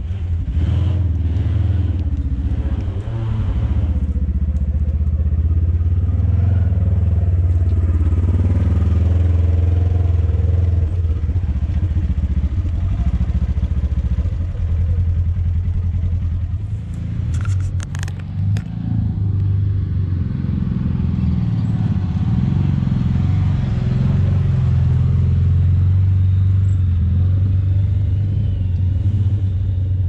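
Side-by-side UTV engines running, a loud steady low drone, with a short clatter of sharp knocks a little past halfway through.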